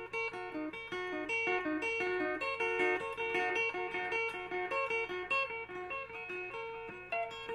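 Electric guitar played through a Caline Ghost Rain reverb-delay pedal: a quick run of picked single notes, each leaving an overlapping echo-and-reverb trail that the player likens to digital crickets or frogs.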